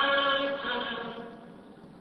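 Voices singing a slow, chant-like choral line on held notes; the chord fades away in the second half.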